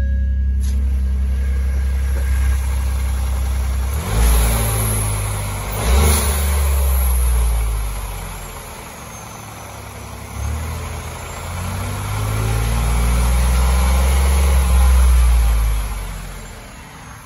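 Ford F-150 3.5-litre V6 running at idle and being revved: two quick blips about four and six seconds in, then a longer rev that climbs, holds and falls back to idle near the end.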